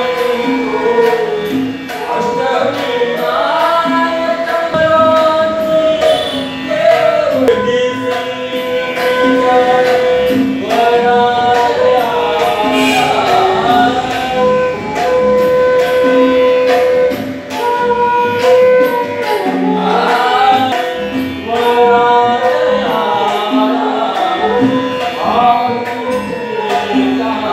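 Live Carnatic devotional music: a man sings a gliding, ornamented melody, accompanied by a bamboo flute and a regular drum beat.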